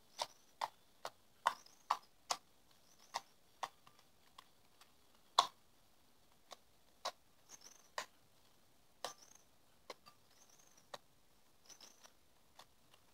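Pink slime, mixed with absorbent gel from a diaper, being kneaded and squeezed by hand in a ceramic bowl: faint, irregular wet clicks and snaps, with the loudest about five seconds in.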